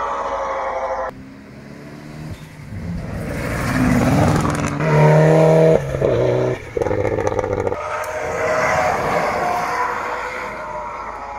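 Rally car engines revving hard as cars accelerate past along the stage. The sound is several short clips cut together, so the engine note and loudness jump abruptly a few times; the loudest run comes just past the middle.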